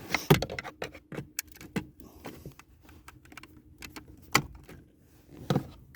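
Scattered sharp clicks and knocks of a screwdriver working against the hard plastic shifter-console trim, levering at its clips, with the strongest clicks just after the start and again around four and a half and five and a half seconds in.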